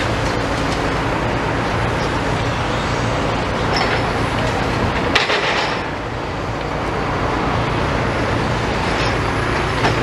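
Road traffic: a steady low engine rumble, with a single sharp knock about five seconds in.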